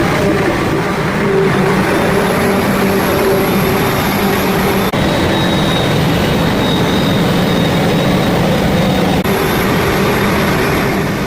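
Forage harvester running steadily under load as it cuts, chops and blows corn for silage, with a heavy engine drone and a faint high whine.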